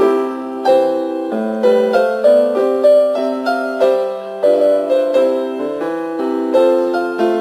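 Gentle background piano music. Chords are struck about every two-thirds of a second, and each fades away before the next.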